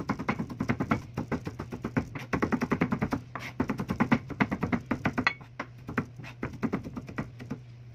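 Kitchen knife rapidly chopping garlic cloves on a cutting board: quick runs of knife strikes, several a second, thinning out after about five seconds, over a steady low hum.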